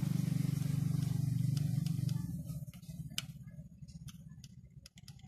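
Motorcycle engine idling with an even pulse, then shut off and running down to a stop about two seconds in, its beats spreading apart as it dies. A few light metallic clicks follow.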